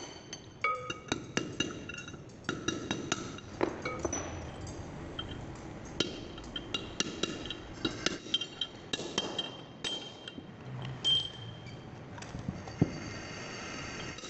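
Ball-peen hammer striking a steel drift set against the bearing outer race in a truck wheel hub, a series of irregular blows that each ring with a metallic clink. This is the old bearing race being driven out of the hub's housing.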